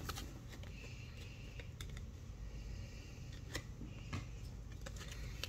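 Faint, scattered light clicks and soft rustling of hockey trading cards and foil packs being handled.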